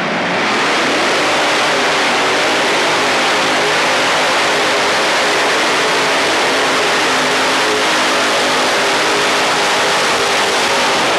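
Modified pulling tractor running at full throttle, a loud and steady engine sound that holds for about eleven seconds, as on a pull down the track.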